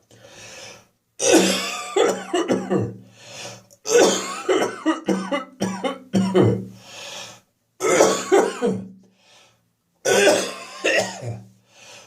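A person's chesty, catarrh-laden coughing and throat clearing: four harsh bouts, each a string of rapid hacks that fade out, with a loud intake of breath between bouts.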